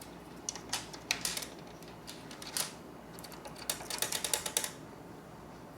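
Screwdriver tightening the screws that hold a circuit board in a fire alarm control panel: scattered metal clicks, then a quick run of clicks for about a second near the end.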